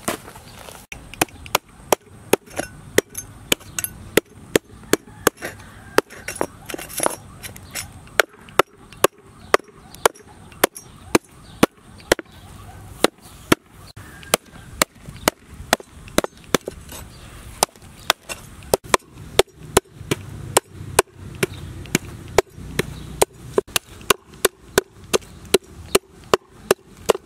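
Meat cleaver chopping into a large fish on a wooden cutting board: sharp repeated chops, a few spaced out at first, then a steady run of about two a second.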